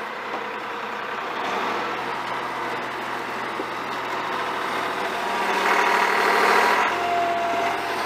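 Compact tractor's engine running as its front loader works dirt, growing louder about two-thirds of the way through. A brief high whine comes near the end.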